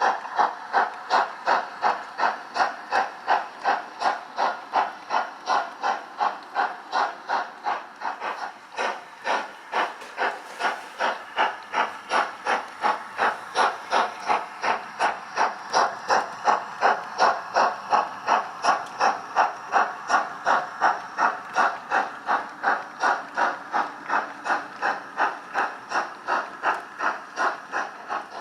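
Model steam locomotive's digital sound decoder playing a Black 5 exhaust, chuffing steadily at about two to three beats a second through the model's small loudspeaker; the beats soften briefly about a third of the way in.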